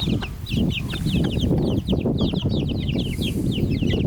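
Chicks peeping continuously, many short high downward-sliding peeps a second, over a steady low rustling and scuffling as the hen and chicks peck at food on the ground.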